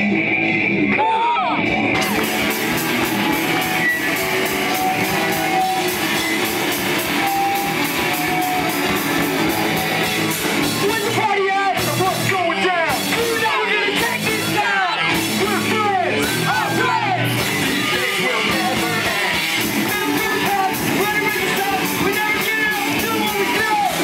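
A pop punk band playing live: electric guitars, bass and drums, with the drums and cymbals kicking in fully about two seconds in. Sung vocals come in over the band about halfway through.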